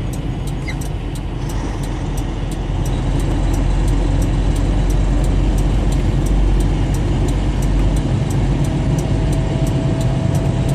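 Engine drone and road noise heard from inside a moving truck's cab at highway speed, steady and growing a little louder a few seconds in.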